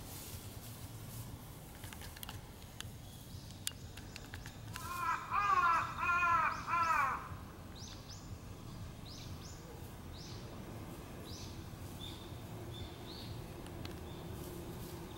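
A crow cawing a quick run of about six harsh caws a few seconds in, over steady outdoor background noise. Small birds chirp faintly and high after it.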